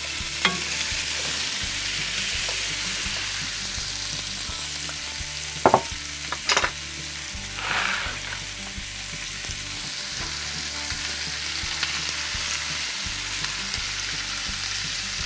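Bacon grease and vegetables sizzling steadily in a cast-iron Dutch oven, with a few sharp clicks about halfway through.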